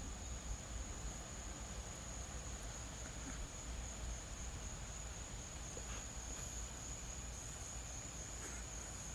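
Steady, high-pitched chorus of night insects, one unbroken even tone, with a low rumble underneath.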